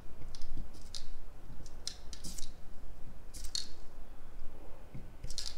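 Spray paint can hissing in a series of short bursts, about six or seven, each lasting a fraction of a second. The cap is pressed lightly and flicked off close to the wall, the technique for spraying thin lines such as eyelashes.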